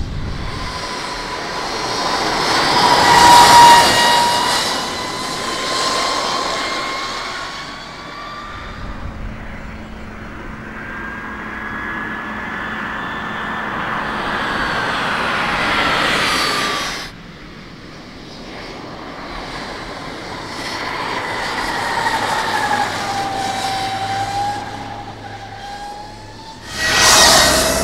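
Agni X01 electric racing motorcycle passing at speed: a high electric motor whine over a rush of wind and tyres, its pitch rising as the bike comes on and sliding down as it goes by. Several passes, the loudest about three to four seconds in, with abrupt breaks between them.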